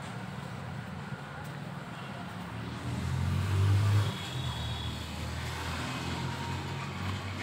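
A motor vehicle's engine running nearby, a low hum that swells loudest about three seconds in and then eases back to a steady level.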